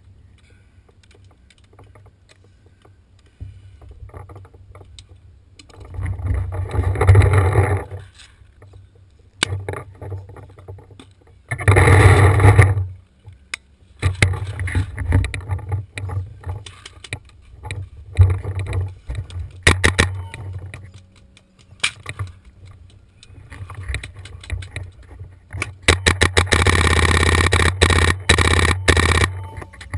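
Scuffing and rumbling of a marker-mounted camera's microphone being jostled, in several loud bursts and a longer stretch near the end, with scattered sharp pops typical of paintball markers firing.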